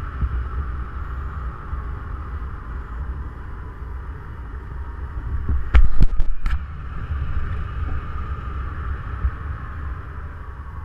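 Airflow of a paraglider in flight buffeting the camera microphone: a steady low rumble with a hiss over it. About six seconds in, a few loud knocks.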